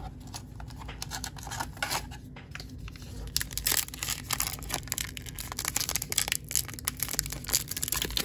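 Trading card pack wrapper crinkling and tearing as it is pulled open by hand, the crackle growing dense and louder about three seconds in. The wrapper is slow to tear.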